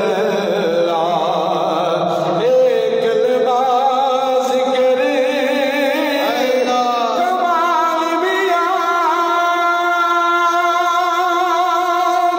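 Male voice chanting Islamic devotional recitation (zikr or qasida) in long, wavering held notes that glide from pitch to pitch.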